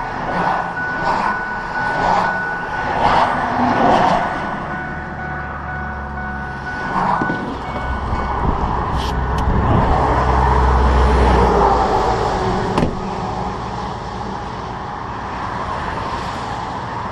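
Heavy interstate traffic passing close by on the highway. A heavy vehicle rumbles past about ten seconds in, and there is a sharp click about three seconds later.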